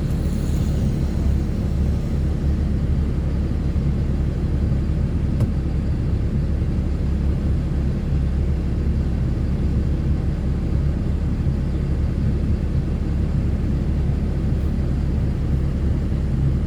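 Ford Cargo 2428 truck's diesel engine idling steadily, heard from inside the cab as a low, even drone.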